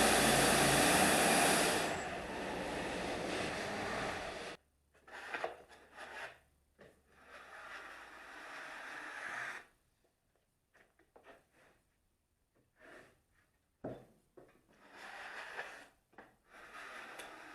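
Wood-Mizer LT35 portable sawmill running, dropping in level about two seconds in and cutting off suddenly a couple of seconds later. Then come short, irregular bursts of wood scraping and rubbing as sawn boards are handled.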